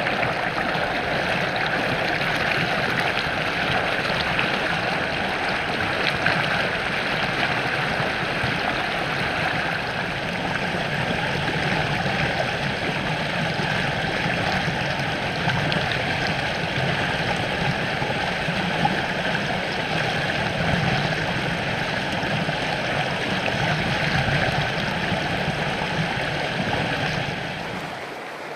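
Storm-swollen creek running high and fast, brown floodwater rushing and churning as steady whitewater, heard with the microphone just above the water surface. Near the very end it drops noticeably quieter as the view moves back from the water.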